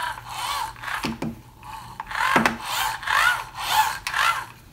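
Hand-worked tool parts scraping and rubbing in a series of about five short strokes, some with a brief squeak that bends up and down in pitch.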